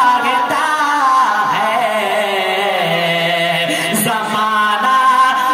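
A man's solo voice singing a naat, an Urdu devotional poem, into a microphone. He draws the notes out long, the melody sliding slowly down through the middle and climbing back to a held note about four seconds in.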